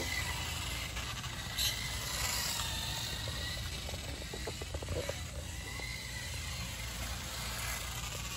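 Electric motor and drivetrain of a Kyosho HOR 1/8 scale RC motorcycle whining as it runs across concrete, the pitch rising and falling with the throttle, over a steady low rumble.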